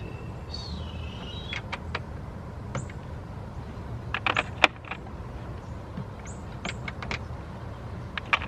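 Hand work on a car's interior door panel: scattered sharp clicks and taps of a screwdriver and plastic trim. A short squeak slides down in pitch about half a second in, and a quick cluster of clicks comes about four seconds in.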